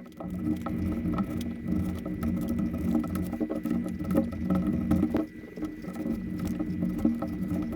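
Sharp craft knife blade drawing through leather along a stencil edge: a steady scratchy, crackling cut made of many small ticks, with a brief pause about five seconds in.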